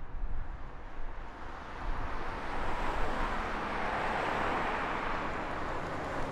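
Rushing vehicle noise that swells over about three seconds and then holds, over a low rumble.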